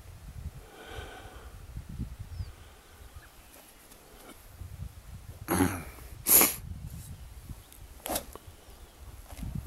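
Golf driver striking a ball off the tee: one sharp, loud crack about two-thirds of the way through, with a shorter sound just before it and another brief one near the end. Wind gusts on the microphone throughout.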